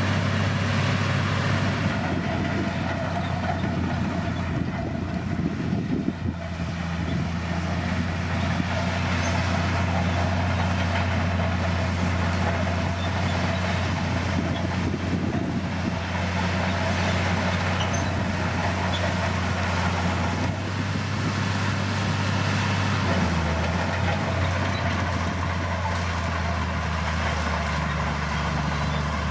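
D60P bulldozer's diesel engine running steadily under work, its note shifting about six seconds in and again around twenty-three seconds.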